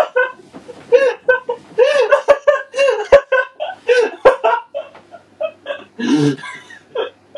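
A person laughing hard in a long run of quick, high-pitched pulses that thin out about five seconds in, with one short, lower, rougher breath about six seconds in.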